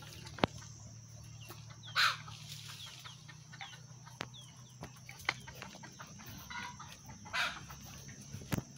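Chickens clucking, with two louder calls about two seconds in and about seven seconds in, and faint high bird chirps in between.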